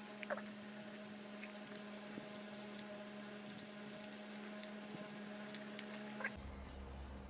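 Faint paper rustling and small crinkles and taps as a sheet of paper is rolled and handled, over a steady low hum that drops to a deeper hum near the end.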